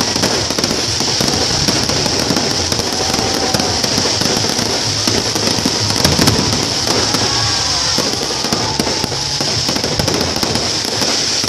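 Fireworks display: dense, continuous crackling with many sharp pops, steady in loudness throughout.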